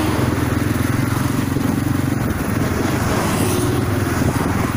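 Motorcycle engine running steadily while being ridden slowly alongside a line of stopped cars, with road noise.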